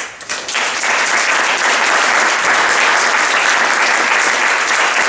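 Audience applauding: a few scattered claps at first, then full, steady clapping from about half a second in.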